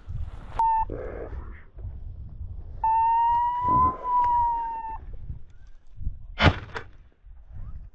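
Dog whining twice: a brief whine just after the start and a longer high whine of about two seconds that rises a little and then falls. A low rumble of wind on the microphone runs underneath, and a short sharp rustle comes near the end.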